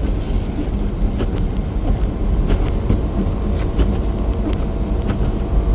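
Car driving on a snowy road: a loud, steady low rumble from engine and tyres, with scattered short, sharp ticks.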